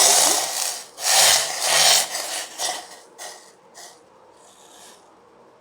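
Rough scraping of a cooking pan against a hard surface: two long, loud strokes, then several shorter, fainter ones.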